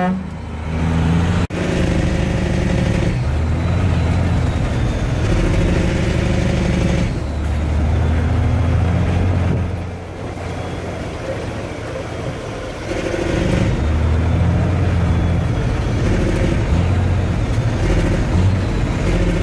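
Detroit Diesel Series 60 12.7 L inline-six in a Western Star dump truck pulling on the road, heard from inside the cab. The engine note breaks off briefly several times as gears are changed on the 18-speed Eaton Fuller gearbox, and there is a quieter lull about ten seconds in.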